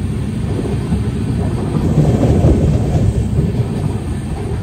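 Express passenger train running on the line, heard from on board as a steady low rumble that swells about two seconds in.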